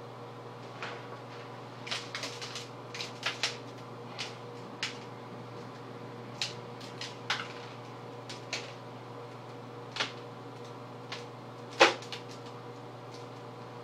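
Scattered short clicks, crinkles and soft knocks from an aluminium foil pie tin and shaving cream being handled, with one sharper, louder knock near the end, over a steady room hum.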